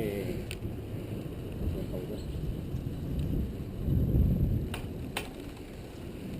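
Mountain bike riding over a rough trail: tyre rumble and wind on the microphone, swelling louder about four seconds in, followed by two sharp clicks.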